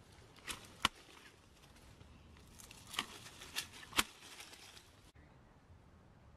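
Sharp clicks and snaps from a long-handled grabber tool picking oranges off the tree: two about half a second apart near the start, then three more in quick succession about three to four seconds in.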